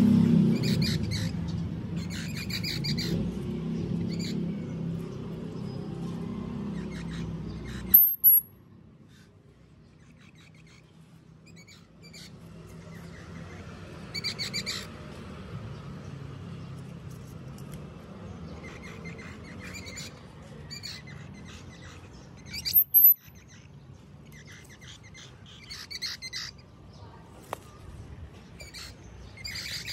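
Rapid high-pitched chirping from small animals, in short clusters of quick notes that come back every few seconds. There are a few sharp, very high squeaks that fall in pitch, about 8 seconds in, near 23 seconds and at the very end.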